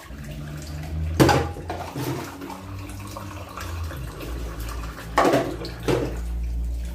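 Dishes being washed by hand at a sink: water splashing, with clattering of dishes, loudest about a second in and again around five and six seconds in.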